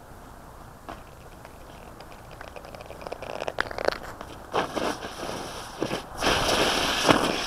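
Crunching footsteps on a frozen outdoor surface. Faint for the first few seconds, then louder and more frequent from about three seconds in.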